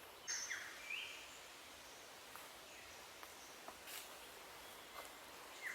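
Birds calling in rainforest ambience: a short call of quick falling then rising whistles about a third of a second in, heard again near the end, with a few faint clicks between over a low steady hiss.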